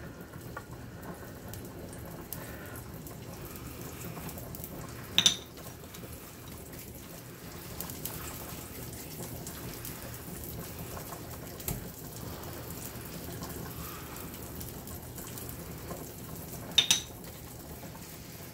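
Gloved hands squishing and rolling a wet ground-meat mixture in a stainless steel bowl to shape meatballs, over a steady low hiss. Three short sharp knocks stand out, about five, twelve and seventeen seconds in.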